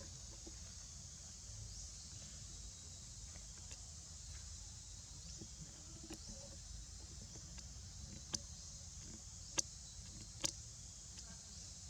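Insects buzzing steadily in a high continuous chorus over a low rumble, with three sharp clicks a second or so apart near the end.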